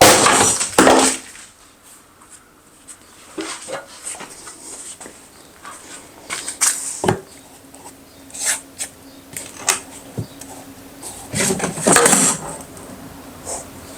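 Bauer rolling toolbox dropped from about 8 feet and handled, with a loud crash at the very start, scattered knocks and clatter through the middle, and another loud burst of clatter about twelve seconds in.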